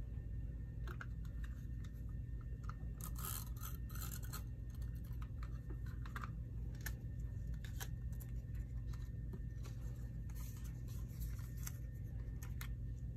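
Light rustles, scrapes and clicks of card stock being handled and pressed down, with a tape runner rolled over the paper, in scattered clusters over a steady low hum.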